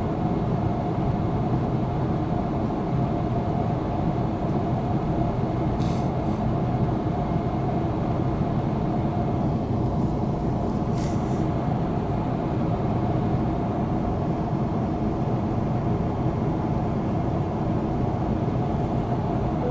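A steady, loud low engine drone with a few held tones in it. Two brief high hisses come about six and eleven seconds in.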